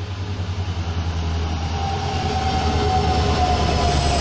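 Passenger express train led by an electric locomotive running into the station and past the platform. A steady low hum and a high whine that slowly falls in pitch grow louder as the locomotive draws level.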